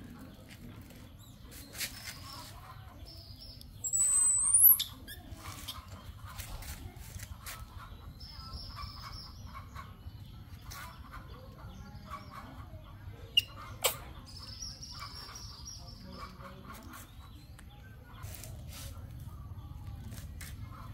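Birds chirping and squawking now and then, with one sharp, rising high-pitched call about four seconds in. Scattered small clicks and rustles run through it, with two sharper clicks about two-thirds of the way through.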